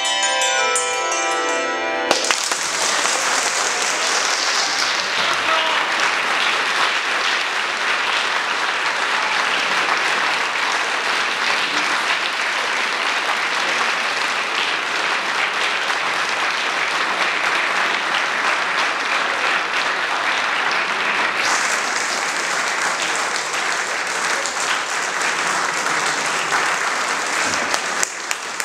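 Twenty-four handbells finishing a change-ringing piece, the last notes stepping down the scale and stopping about two seconds in. An audience then applauds steadily to the end.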